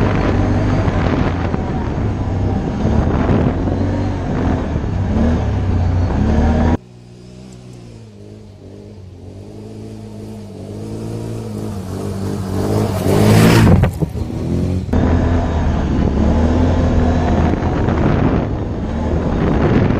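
Can-Am Outlander ATV engine running along a trail, its pitch rising and falling as the throttle changes. About seven seconds in it drops away and the ATV is heard approaching from a distance, growing louder until it passes close by. A couple of seconds later the loud ride-along engine sound returns.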